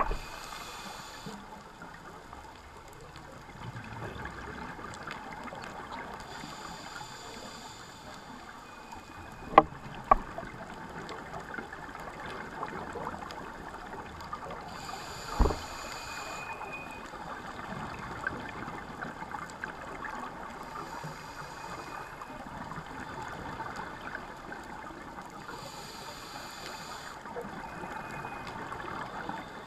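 Underwater sound heard through a GoPro housing: a scuba diver's regulator breathing, with a burst of hiss several times and a steady crackling haze in between. A few sharp knocks stand out, two close together about ten seconds in and one a few seconds later.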